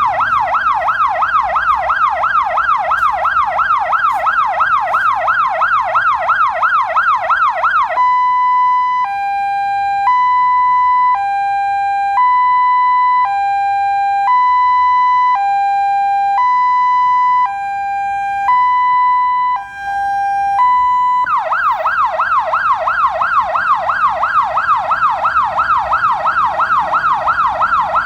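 Electronic vehicle siren switching between tones: a fast yelp sweeping up and down several times a second, then a two-tone high-low wail alternating about once a second, then the fast yelp again about 21 seconds in.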